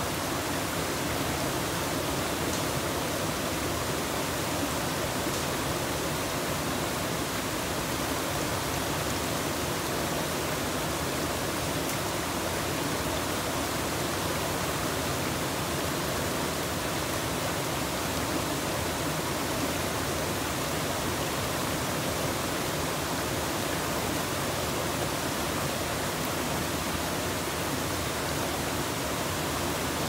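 Water pouring over a small two-tiered waterfall into a rocky river pool, a steady, even rush of falling water that does not change.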